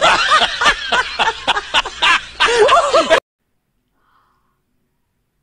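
Loud, rapid burst of laughter from a laughing-monkey meme clip, repeated 'ha' sounds rising and falling in pitch, cutting off suddenly about three seconds in.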